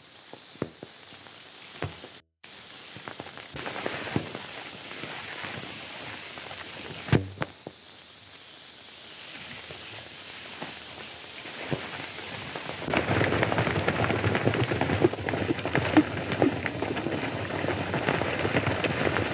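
Worn old film soundtrack hiss with scattered crackles and a single sharp crack partway through. About two-thirds of the way in, a loud, dense, irregular clatter of many horses' hooves at the gallop starts and carries on.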